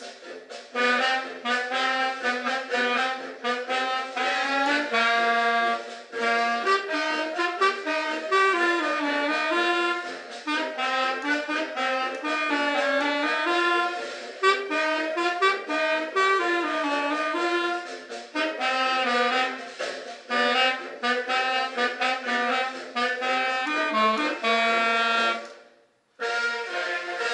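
A person playing a reed or wind instrument: a quick, busy melody over lower held notes, with a brief stop about 26 seconds in before the playing picks up again.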